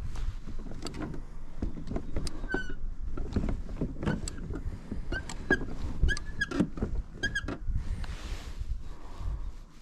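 A run of irregular knocks and clicks with short squeaks, from a plastic fishing kayak and its gear being handled as the kayak turns on the water.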